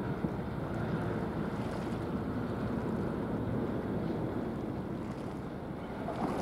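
Steady wind noise on the microphone over open water: a constant low hiss and rumble with no distinct events.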